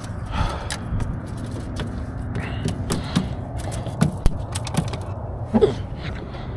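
Fishing reel being cranked during a lure retrieve: irregular clicks and creaks from the reel, over a steady low background rush.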